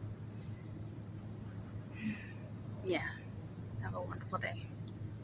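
Insect chirping in a steady rhythm, about two to three chirps a second, over a low steady hum, with a few short falling sounds about three and four seconds in.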